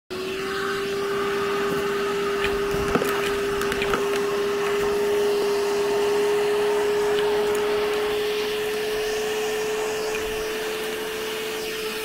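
Milwaukee M12 Fuel brushless wet/dry vacuum running steadily as its hose nozzle sucks up sawdust and small stones from a doormat: a rush of air with a motor whine that creeps slightly higher in pitch. A few sharp clicks come about three and four seconds in.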